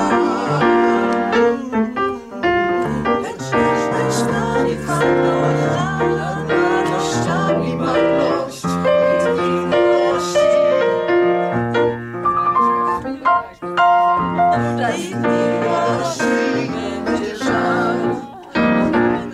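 Piano music played without a break.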